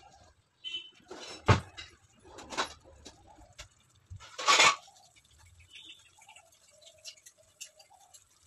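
Metal utensil scraping and clinking against steel cookware while masala is stirred: a sharp clink about a second and a half in and the loudest scrape about four and a half seconds in, with quieter gaps between.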